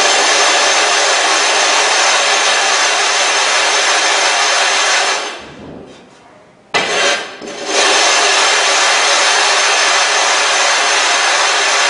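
Sharpening stone being lapped flat on plate glass with loose 90-grit silicon carbide grit: a continuous gritty scraping that stops for about a second and a half around five seconds in, then starts again.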